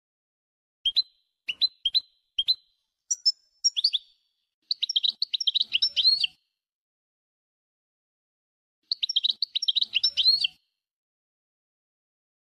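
European goldfinch song in the Maghreb 'wdaniya' style, a tutor recording for teaching young goldfinches: a few separate sharp chirps, then two rapid twittering phrases a few seconds apart, with dead silence between them.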